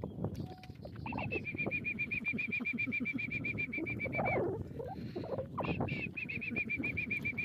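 A bird calling a rapid trill of short, high, even notes, about eight a second, for about three seconds, ending in a slight downward slur. It starts a second trill about five and a half seconds in.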